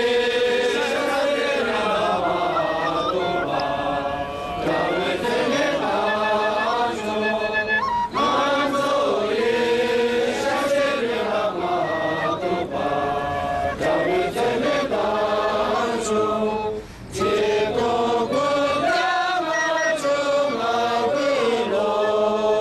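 Chanting voices singing long, slowly gliding phrases, with a short break about seventeen seconds in.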